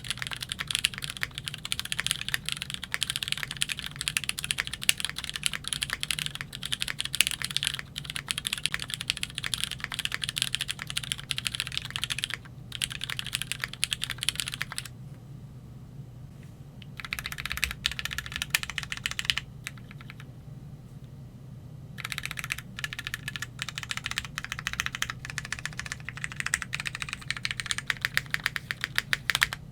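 Typing on a Keychron Q3 tenkeyless mechanical keyboard fitted with a POM plate and lubed Cherry MX Black Hyperglide switches under GMK keycaps: a fast, continuous run of keystrokes that stops briefly twice around the middle.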